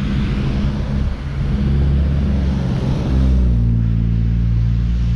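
A large motor vehicle's engine running loudly close by, its steady low note dropping to a lower pitch about three seconds in.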